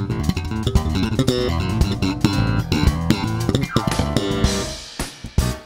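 Live jazz-style band music led by an electric bass guitar with drum kit. About four seconds in a falling slide ends the phrase, and the music drops away to a few scattered hits.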